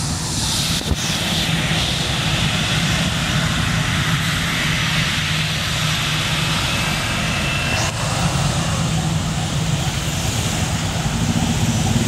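Jet airliner's engines running loud and steady at takeoff power, a continuous roar with a high hiss, while truck and motorcycle engines idle and pass on the road close by.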